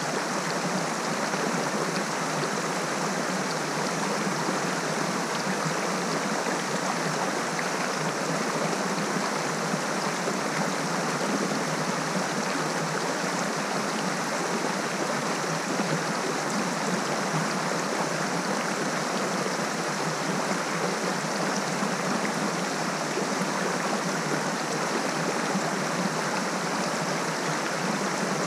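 Small waterfall cascading over rocks into a pool: a steady, unbroken rushing of water.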